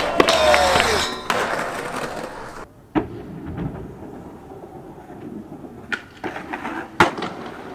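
Skateboard on concrete: wheels rolling, with scattered sharp clacks of the board. Near the end a tail pop is followed about a second later by a hard landing clack, the loudest sound.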